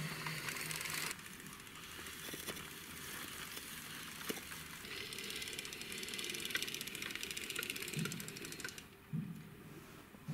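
Toy car-carrier truck pushed by hand across the floor, its small plastic wheels rolling with a fast, steady clicking rattle. It stops about nine seconds in, with a couple of soft bumps.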